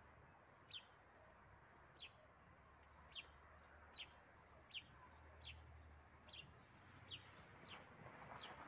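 A small songbird calling faintly, a short high chirp that slides down in pitch, repeated about once a second, over a faint low hum.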